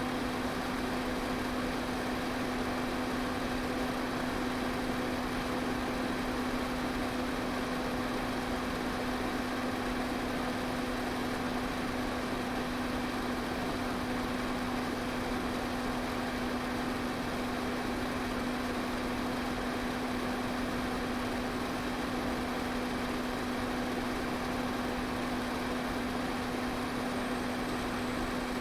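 Electric fan running steadily: an even whooshing noise of moving air with a steady motor hum underneath, unchanging throughout.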